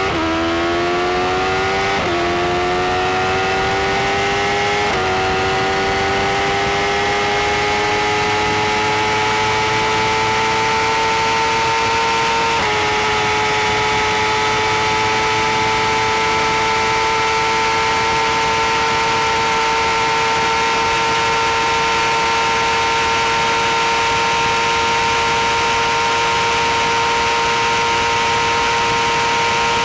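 BMW S1000RR's 999 cc inline-four engine under full-throttle acceleration at high speed. Its pitch climbs and drops briefly at each of three quick upshifts, about 2 s, 5 s and 12 s in. After the last shift it holds a high, slowly rising note, with steady wind rush underneath.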